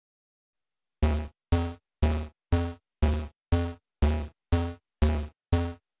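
Electronic drum-machine beat: the same short deep thump with a pitched synth tone on top, repeated evenly twice a second, starting about a second in.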